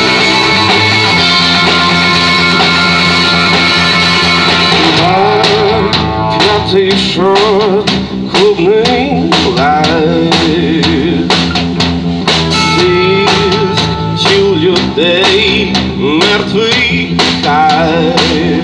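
Live rock band playing through amplifiers: electric guitars with bass and a drum kit. For the first five seconds or so the guitars ring out alone, then the drums come in with regular hits and a woman starts singing.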